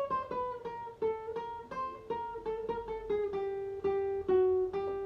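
Guitar playing a single-note melody of the circus clown tune, plucked notes coming quickly, about four or five a second, and stepping down in pitch.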